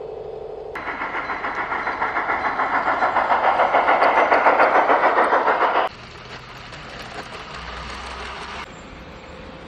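Garden-railway model train running, a rapid rhythmic pulsing rush at about six beats a second that grows louder and then cuts off abruptly after about five seconds, followed by a fainter hiss that stops a few seconds later.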